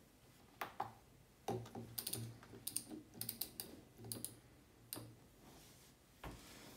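Control panel of an LG Direct Drive front-loading washing machine: a run of short plastic clicks as the power button is pressed and the program dial is turned notch by notch to the Quick 30 cycle. A single low thump comes near the end.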